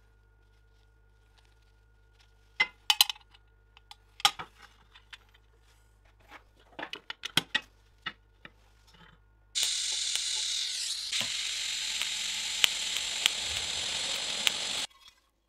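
Light clicks and clinks of metal parts being handled and clamped, then a TIG welding arc hissing steadily for about five seconds with a few crackles, cutting off sharply near the end.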